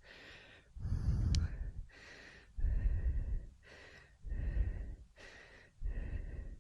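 Heavy breathing close to a helmet-mounted microphone: four loud breaths about two seconds apart, each blowing a low rumble onto the mic, with quieter stretches between. A brief click comes about a second and a half in.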